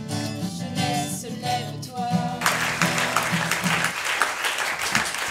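Two acoustic guitars playing the closing bars of a song; about halfway through, an audience breaks into applause, which carries on as the last guitar notes die away.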